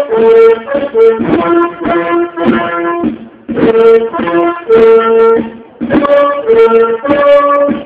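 Military brass band playing a ceremonial tune, held brass notes in several parts at once, in phrases of a few seconds broken by short breaks.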